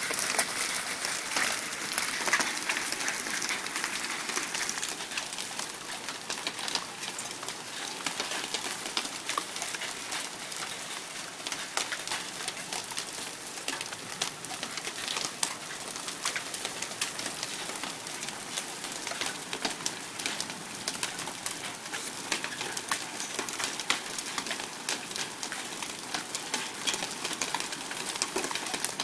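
Heavy rain and hail falling on a wooden deck: a steady hiss of rain dotted throughout with many sharp ticks of hailstones striking.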